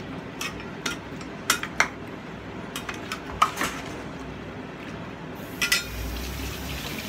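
Metal spoon clinking and knocking against a metal pot while stirring chunks of vegetables: about nine sharp knocks at irregular spacing. A steady hiss comes in near the end.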